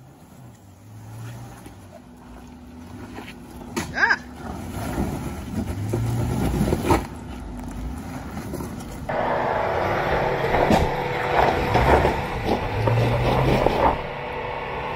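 Jeep Grand Cherokee Trailhawk crawling up rock ledges: the engine runs at low revs under load while the tyres grind over rock. There are sharp knocks about 4 and 7 seconds in, and a louder stretch in the second half, in keeping with the underbody scraping and dragging on the rock.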